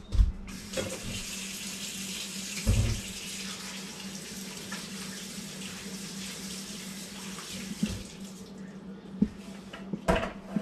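Water running steadily from a tap for about eight seconds, then shut off, with a couple of dull thumps near the start and a few knocks near the end.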